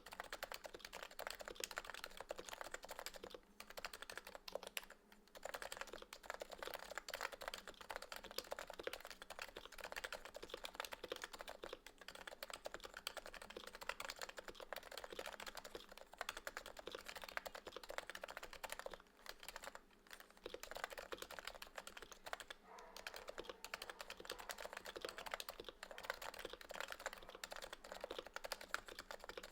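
Continuous typing on a Realforce R2 PFU Topre keyboard fitted with light Metakeebs 30gf domes: a dense stream of keystrokes, broken by a few brief pauses.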